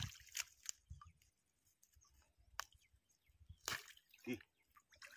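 Faint small splashes and drips of shallow water as hands work in it, a handful of short sharp sounds spread a second or so apart.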